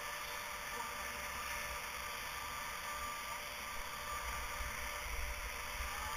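Steady hiss and hum of distant snowmaking guns, with a faint mechanical whine, while wind buffets the camera microphone in uneven low rumbles that grow slightly stronger in the second half.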